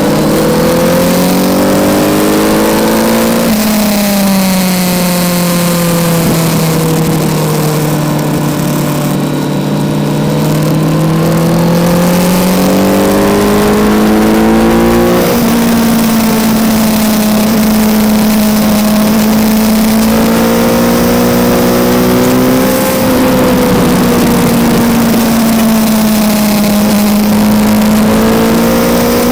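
Kawasaki Z900's inline-four engine heard onboard at track speed: the pitch climbs under acceleration, drops suddenly about three and a half seconds in, falls slowly as the bike slows for a corner, then rises again as it accelerates out, with further changes near the middle and end. A steady rush of noise runs under the engine.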